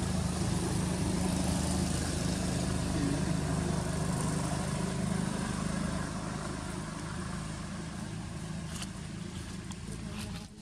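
A motor vehicle's engine idling nearby: a steady low hum that eases a little partway through and cuts off suddenly at the very end.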